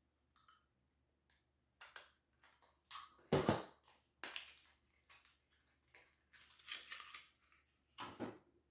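Lip gloss packaging being handled and opened: irregular crinkling, rustling and small clicks, with a louder knock about three and a half seconds in.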